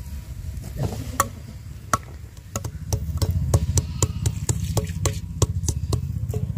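Roti dough being worked by hand: a few single sharp knocks, then a quick even run of wooden-sounding knocks, about three to four a second, over a steady low rumble.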